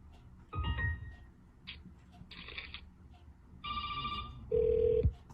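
A run of short Windows XP system sounds, chimes and beeps one after another with a brief gap between them, played through a Logitech Z906 speaker system with heavy bass under some of them. The last is a steady beep that stops cleanly.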